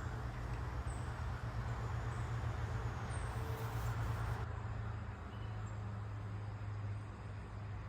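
A heavy engine running steadily, a low hum, with a brief hiss that cuts off about four and a half seconds in. Faint bird chirps now and then.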